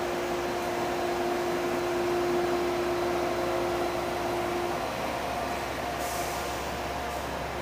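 Tri-Rail commuter train rolling into the station, its bilevel coaches passing at slow speed with a steady rumble. A steady whine sounds with it and stops about five seconds in, and a short hiss comes near the end.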